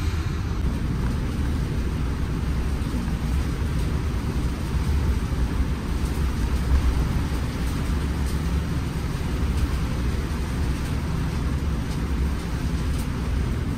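Coach bus running on the road: a steady low rumble of engine and road noise.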